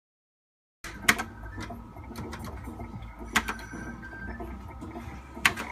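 Merkur video slot machine's electronic sounds during its free games: short sharp clicks over steady electronic tones, starting about a second in.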